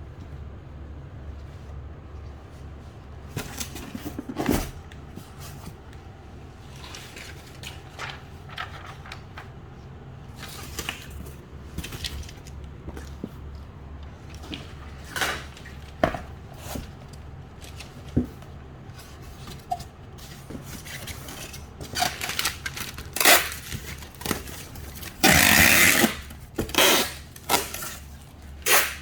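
Scattered clicks, knocks and rustles of hand packing work over a steady low hum, with several louder scraping bursts in the last few seconds.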